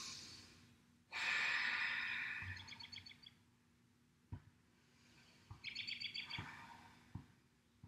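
A person's long audible breath out, lasting about two seconds and starting about a second in, and a softer breath a few seconds later. Each is followed by a short, rapid, high chirping trill. A few faint taps come in between.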